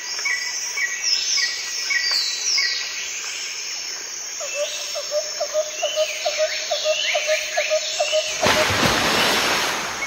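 Birds calling: repeated short chirps and descending whistles, joined from about four seconds in by a rapid series of short notes, about three or four a second. Near the end a rush of hiss takes over.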